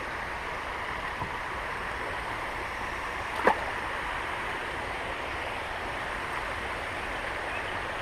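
Creek water running steadily, an even rushing. A single brief click about three and a half seconds in.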